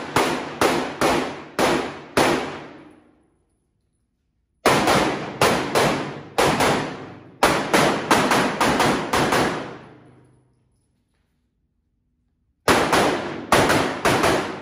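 Handgun shots fired in fast strings: about six in the first couple of seconds, about a dozen more after a gap, and four near the end, each shot with a long echo off the concrete-block walls of an indoor range. The strings are separated by spells of dead silence.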